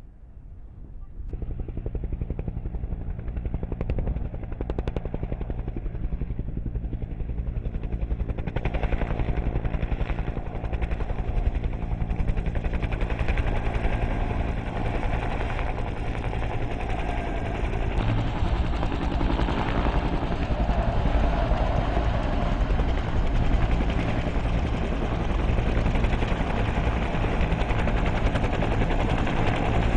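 AH-1S Cobra helicopters' two-bladed main rotors beating in rapid, even blade slap over the running turbine engines. The sound comes in about a second in and grows louder and brighter from about eight seconds in as the helicopters come close and hover.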